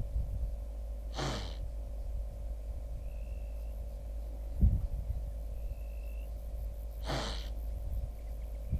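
Blue wildebeest snorting twice, two short forceful exhalations through the nose about six seconds apart, over a steady low hum.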